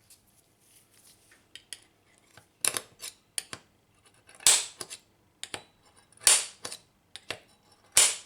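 Automatic centre punch firing four times, each press ending in a sharp metallic snap as the spring-loaded hammer releases, with small clicks of handling between, showing the punch still works with its new knob.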